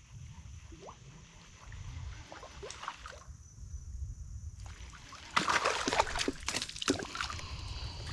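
Kayak paddle strokes in the water. A louder splashing wash comes about five and a half seconds in and lasts over a second, over a low steady rumble.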